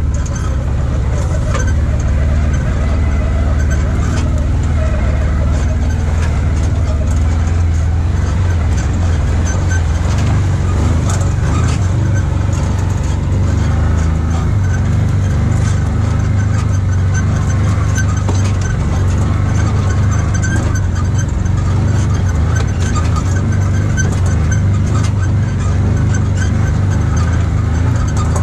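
Side-by-side UTV engine running steadily as the machine drives along a rough trail, a constant low drone. Occasional short knocks are heard over it.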